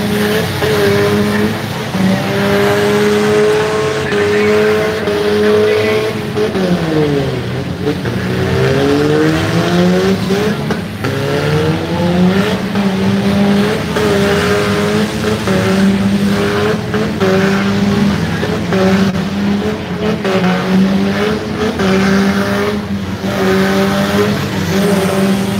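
Demolition derby cars' engines running hard at high revs in a steady loud drone, one engine dropping in pitch and climbing again about seven seconds in. Occasional sharp bangs of cars hitting each other.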